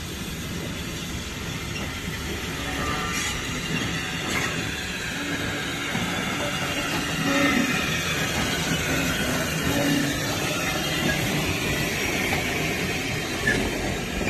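Small steam tank locomotive and brake van rolling past at low speed: a steady rumble and rattle of wheels on rail that grows louder as they pass, with light wheel squeal.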